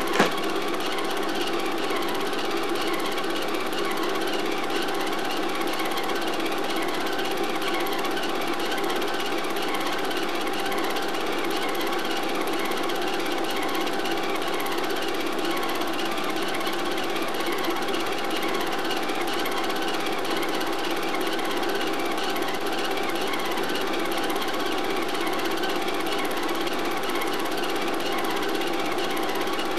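Film projector running: a steady, rapid mechanical clatter from its motor and film-advance mechanism, with one sharp click just after the start.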